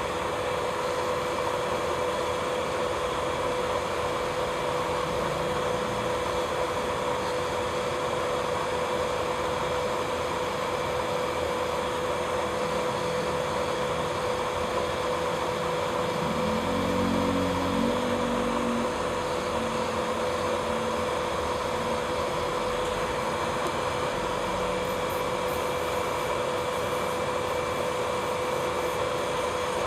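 Electric nail file drill running at a steady speed, a constant whine, while the bit works around the cuticles. About halfway through, a brief lower rumble comes and goes.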